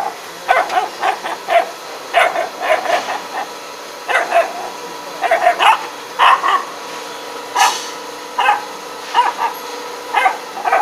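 Small puppy barking angrily in short, high yaps, often two or three in quick succession about once a second, while it snaps at a silicone toy.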